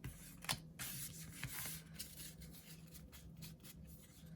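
Faint rustling and light clicks of trading cards and packs being handled and slid about, with a longer soft rustle about a second in.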